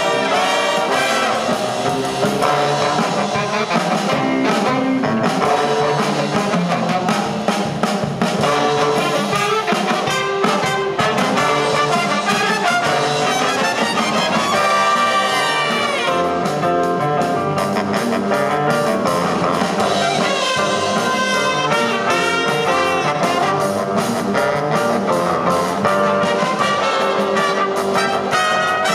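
Jazz big band playing live, with the trumpet, trombone and saxophone sections over the rhythm section.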